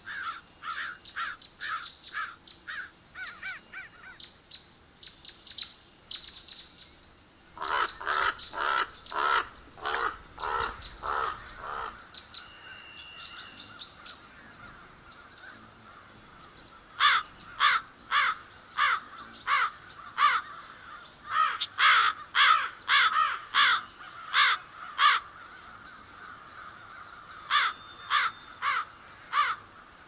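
Crows cawing in runs of short caws, about two a second, with pauses of a few seconds between the runs.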